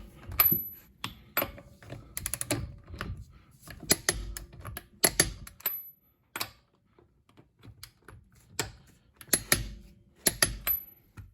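Milwaukee M18 3/8-inch impact wrench firing in short hammering bursts on nuts that are already tight, as they are retorqued, with clicks of the socket and tool being handled between bursts.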